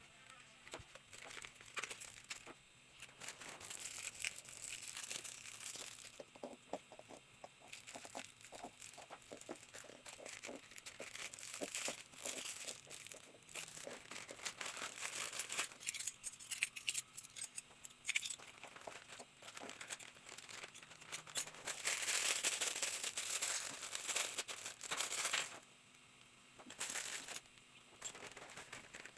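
Plastic packaging crinkling and tearing in irregular bursts as parcels are handled and unwrapped, with the densest, loudest rustling near the end.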